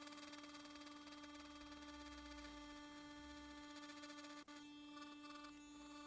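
Electric sonic toothbrush buzzing steadily at a high hum while its head is pressed against a phone's back glass, with a brief break in the buzz about four and a half seconds in.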